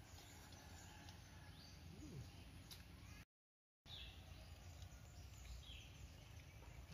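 Near silence: faint outdoor ambience with a few short bird chirps. The audio drops out completely for about half a second just after the middle.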